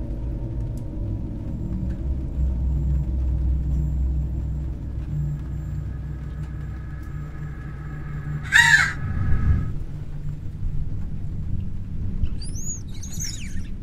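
A crow caws loudly once, about eight and a half seconds in, over a low steady drone. A few high, arching squeaks follow near the end.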